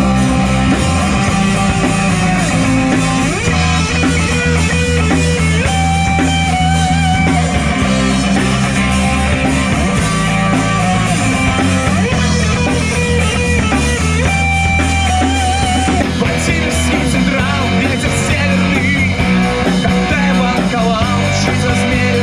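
Street rock band playing live: a singer over electric and acoustic guitars and a drum kit, through small amplifiers.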